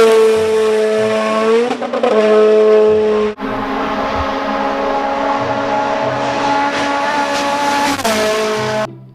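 Racing car engine sound effect: a loud, steady engine note with many overtones. Its pitch dips at the start, it breaks briefly twice in the first few seconds, then it holds a steady pitch before fading out near the end.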